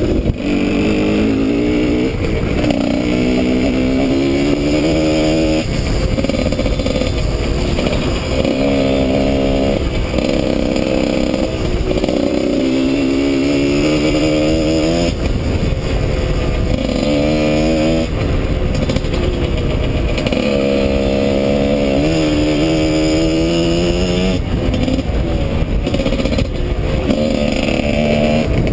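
Husqvarna WRE 125's two-stroke single-cylinder engine, fitted with a Giannelli exhaust, riding hard on a dirt track. The revs climb and fall back again and again as it accelerates and shifts up through the gears, with wind on the helmet-mounted microphone.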